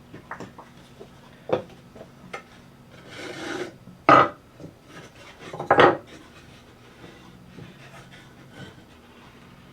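Cedar fence-picket boards being handled and set in place: light taps, a scrape of wood sliding about three seconds in, then two louder knocks at about four and six seconds.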